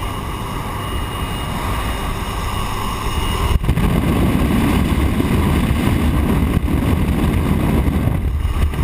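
Engine and rushing wind through the open door of a high-wing light aircraft in flight, a steady loud roar. It gets louder from about three and a half seconds in, as the view leans out into the airflow at the door.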